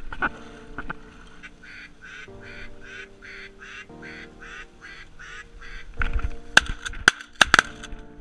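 A rapid series of duck quacks, about four a second, with louder, sharper quacks near the end, over background music.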